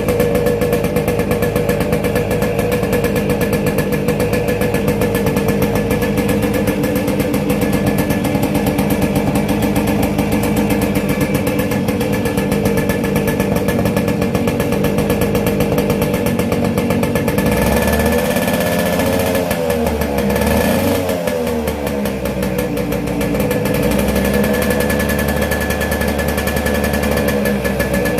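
Yamaha RX100's two-stroke single-cylinder engine idling steadily with a rapid, even pulse, revved briefly a few times about two-thirds of the way through, then settling back to idle.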